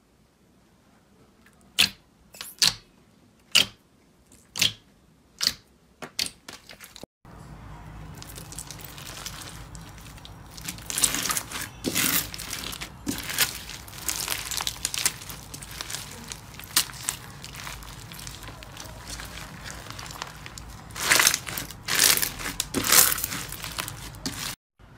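Crisp clicking pops, about one a second, as fingers poke a firm royal-blue jelly slime. After a cut, continuous crackling and crunching as hands squeeze and stretch a bumpy white crunchy slime, louder in a few squeezes.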